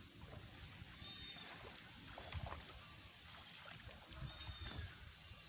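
Shallow pond water sloshing softly as a man wades through it in short irregular splashes. A short high animal call sounds twice, about a second in and again near the end.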